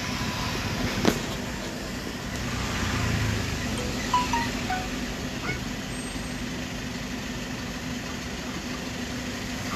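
Steady road-traffic noise with running vehicle engines humming low. A sharp click comes about a second in, and a few short high chirps come around four seconds in.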